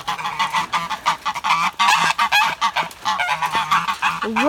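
A flock of domestic geese honking, many short calls coming fast and overlapping.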